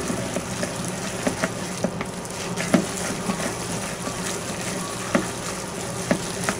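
Dumpling filling of minced pork, shrimp, chives and egg being squished and mixed by hand in a plastic bowl: a steady wet squelching with scattered small clicks.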